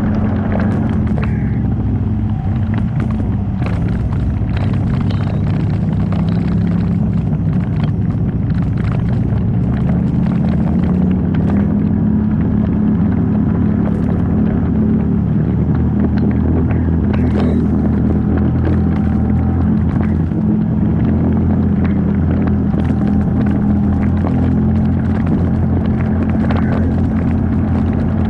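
Off-road 4x4 engine running steadily, its low drone holding throughout, with frequent clicks and knocks on top.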